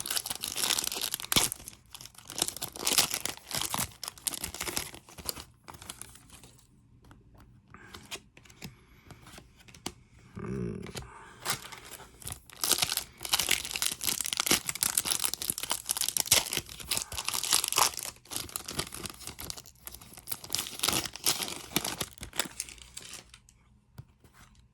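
Basketball trading-card pack wrappers being torn open and crinkled by hand, in two busy stretches of rapid crackling with a quieter pause in between.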